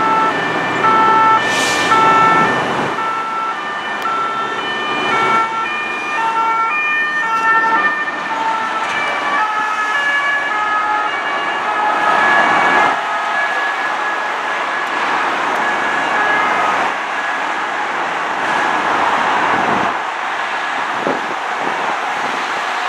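French two-tone emergency siren alternating between a high note and a low note. It is loudest at first, then blurs and fades into steady highway traffic noise as the van drives away.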